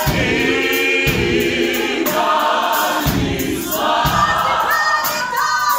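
Gospel choir singing in harmony over a steady beat.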